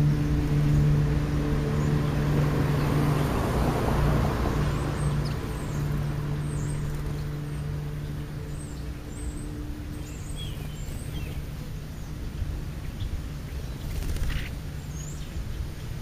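A motor engine hums steadily at a low pitch and fades away over the first ten seconds or so. Small birds give short, faint, high chirps scattered through the second half.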